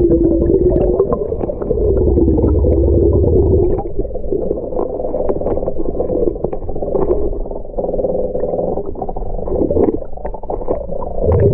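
Muffled underwater sound through a submerged camera housing: a steady low rumble of moving water with wavering hums and many small clicks and crackles.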